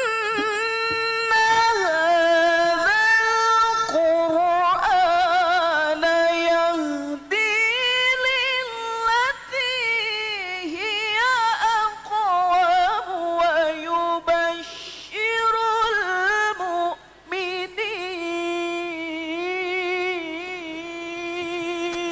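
Melodic Qur'an recitation (tilawah): a single voice holds long, ornamented notes with wavering pitch, with a few brief breaks for breath. It stops abruptly at the end.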